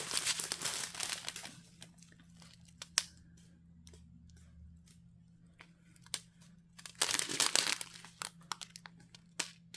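Thin plastic packaging crinkling as strips of bagged diamond-painting drills are handled, in two spells: one in the first second and a half, another around seven to eight and a half seconds in, with a few sharp clicks between.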